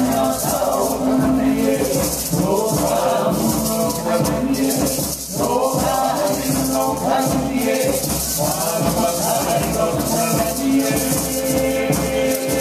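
Hawaiian hula song: a voice singing over the steady, rhythmic shaking of uli'uli, feathered gourd rattles.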